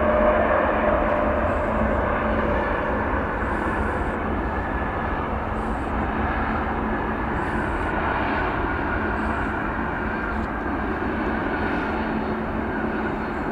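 Jet airliner's engines running as it passes, a steady rushing noise that slowly fades.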